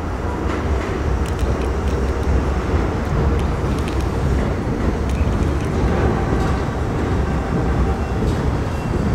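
Steady low rumble of a subway train running on the elevated tracks out of sight, with a few faint clicks scattered through it.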